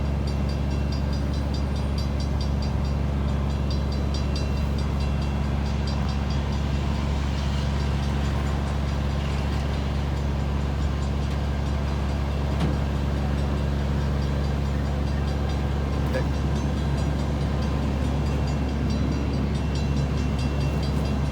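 Steady low drone of a large engine idling, unchanging throughout.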